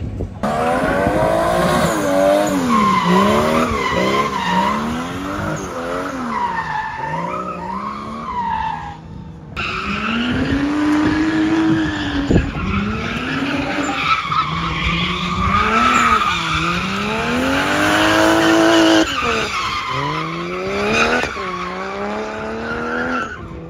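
Drift car sliding around the circuit: its engine revs hard up and down again and again, with tyres screeching through the slides. The sound breaks off for a moment about nine seconds in.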